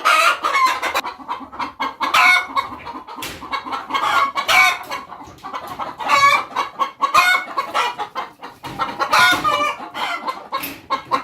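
A flock of laying hens clucking, with many short calls overlapping and coming in clusters every second or so.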